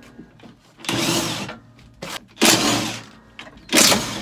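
DeWalt cordless drill with a socket extension running in three short bursts, each starting sharply and fading, as it backs bolts out of a tractor cab's dash panel.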